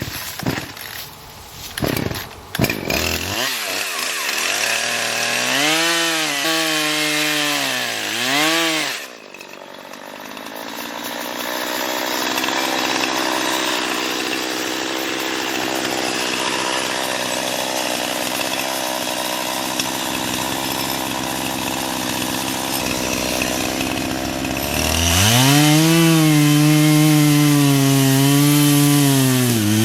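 Two-stroke chainsaw: a few knocks, then it is revved up twice, works steadily under load cutting wood for about fifteen seconds, and runs at high revs again near the end.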